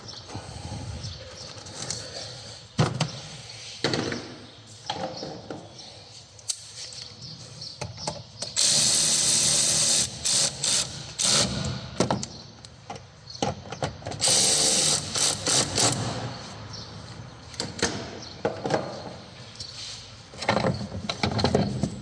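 A handheld power driver spinning in two bursts of about a second and a half each, a little over a third of the way in and again about two-thirds in. Between them come clicks and knocks of parts being handled.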